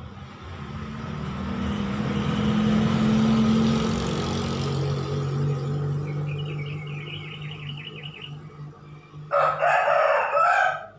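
A green junglefowl rooster crows once near the end, a loud, shrill crow lasting about a second and a half with a short break in it. Before that, a low engine hum from a passing vehicle swells and fades.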